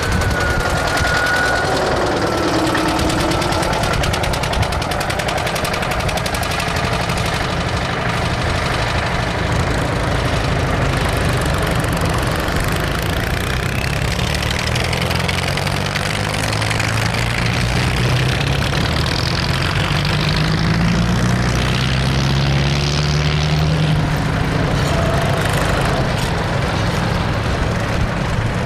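Engines of several old farm tractors running as they drive past one after another, their pitch sliding up and down as each one goes by.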